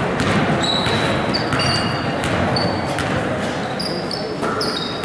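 Basketball dribbled on a hardwood gym floor, a steady series of bounces, with short high sneaker squeaks over a background of crowd chatter.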